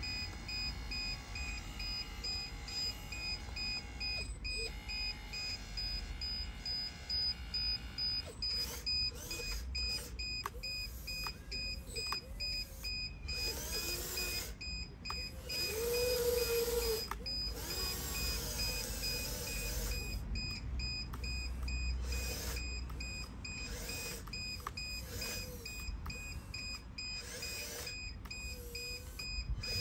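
Hydraulic pump and valves of a 1/16 scale RC Volvo EC160E excavator whining as it digs, with a steady high whine and a lower whine that dips and rises in pitch again and again as the arm and bucket are worked under load.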